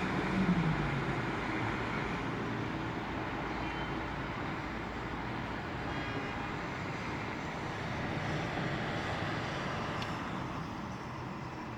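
Steady background rumble and hiss with no clear single event.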